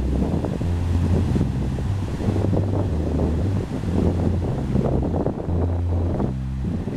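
Strong wind buffeting the microphone in low, rumbling gusts, over the wash of sea waves on the shore.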